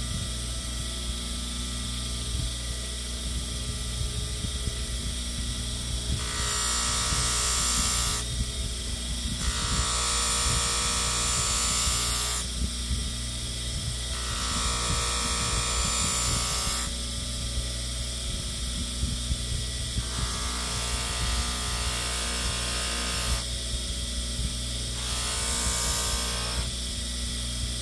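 Bench polisher motor spinning up and running with a steady hum. A hiss comes and goes in spells of two or three seconds, about five times, as the knife is pressed against the buffing wheel.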